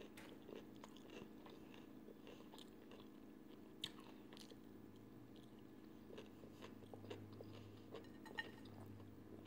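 Faint chewing of food, with small crunchy clicks scattered through it over a low steady hum.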